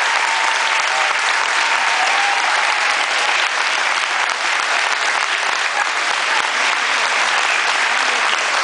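Audience applauding steadily: a dense, continuous patter of many hands clapping.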